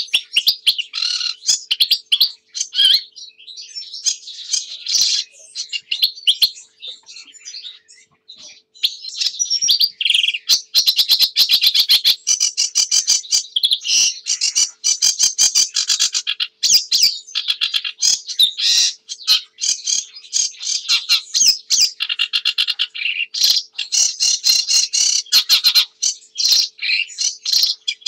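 Sedge warbler singing its long, rapid song of chattering trills, clicks and harsh buzzy notes, easing off briefly about eight seconds in and then running on at full pace.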